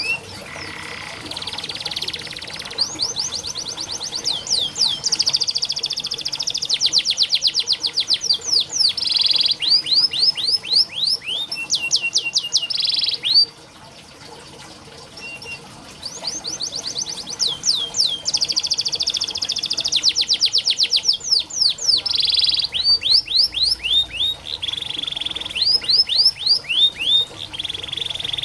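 Domestic canary singing a long song of fast trills and rolls, rapid repeated notes and quick upward sweeps. It breaks off about halfway for a couple of seconds, then starts again.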